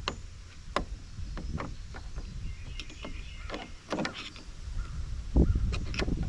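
Scattered sharp clicks and clinks of steel sockets being handled: pulled off a socket rail and pushed onto an organizer. A low rumble sits underneath and gets louder about five seconds in.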